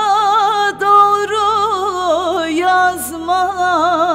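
A woman singing a Turkish folk song (türkü), drawing out the word "doğru" in long held notes with a fast, wide wavering ornament, over instrumental backing.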